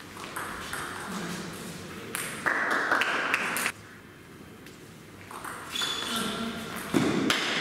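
Table tennis rallies: the celluloid ball clicking off the rackets and bouncing on the table. Two louder stretches of noise, each a second or more long, come about two and a half and about seven seconds in.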